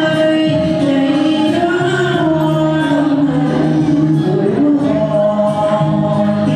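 Vietnamese song sung by voices that may be women, a group or a solo, over instrumental accompaniment, with the melody moving through long held notes.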